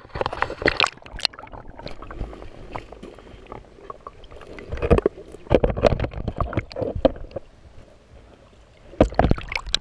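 Lake water sloshing and splashing around an action camera being dipped under the surface, in irregular bursts: one near the start, a longer spell about five to seven seconds in, and another near the end.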